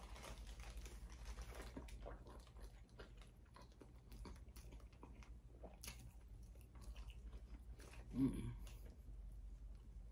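Close-up mouth sounds of a person chewing a buttery mussel and egg, with many small clicks throughout and one short, louder low sound about eight seconds in.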